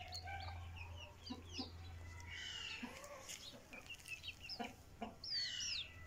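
Faint mix of backyard poultry and bird calls: hens clucking, with many short high chirps and whistling glides scattered throughout, over a low steady hum.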